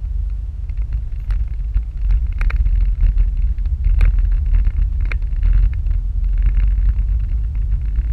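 Low road and engine rumble of a moving car, heard from inside the cabin, growing louder about two seconds in, with scattered clicks and rattles.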